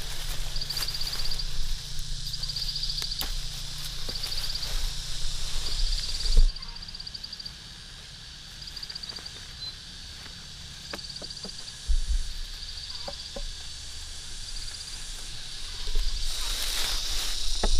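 Insect chirping in short high-pitched pulsed trills about once a second, growing fainter after about six seconds. A low rumble and scattered clicks run underneath.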